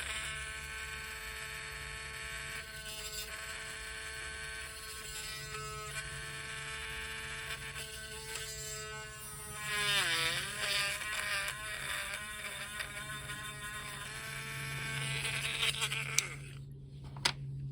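Small Dremel rotary tool with a 1.0 mm drill bit, running with a steady high whine while drilling into a plastic action-figure backpack. About ten seconds in, the pitch dips sharply and wavers as the bit bites under load. The motor stops near the end, followed by a single click.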